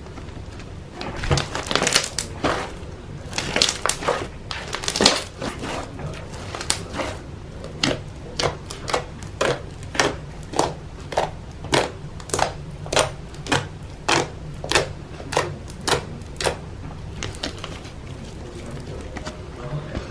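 Slime being worked by hand, giving a regular series of short squishing, crackly sounds, a little under two a second. The sounds stop a few seconds before the end.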